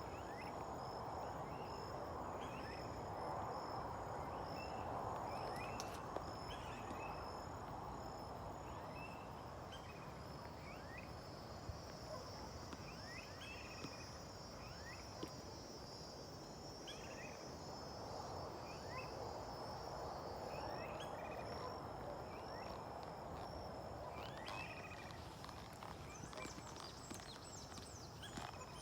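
Rural outdoor ambience: insects trilling steadily at a high pitch, with scattered short bird chirps over a low, even rushing noise.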